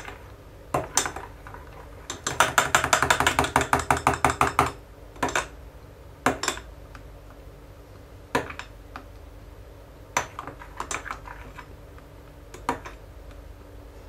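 Metal spoon clinking against a glass measuring jug while stirring liquid soap: a fast run of clinks for about two seconds, then occasional single taps.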